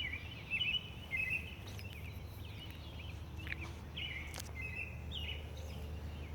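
Small songbirds chirping in short, repeated twittering calls over a steady low background rumble.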